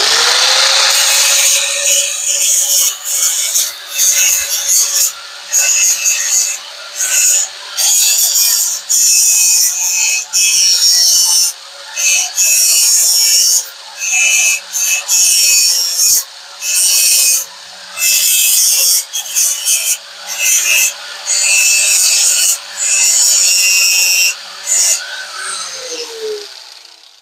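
An electric power tool spins up, runs with a steady whine, and winds down near the end. Over the whine come repeated loud rasping bursts, each about a second long, as it cuts into the shifter knob being shaped.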